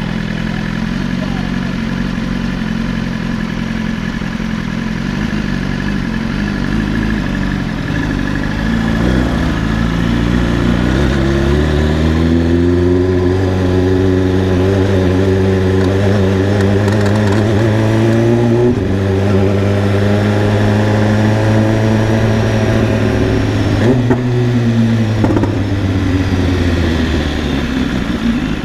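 BMW S1000RR inline-four engine running low at first, then rising in pitch about ten seconds in as the bike speeds up, holding a slowly climbing pitch with two brief breaks, and falling away near the end.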